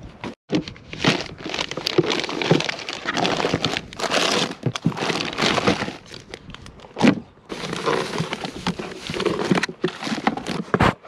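Plastic packaging crinkling and rustling as things are handled, with scattered clicks and a sharp knock about seven seconds in.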